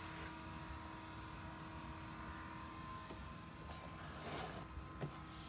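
Quiet room tone with a steady low hum. A faint rustle comes about four seconds in, and a soft tap follows near the end.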